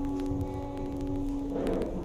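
Soft background music: a sustained chord held steadily under a pause in the preaching.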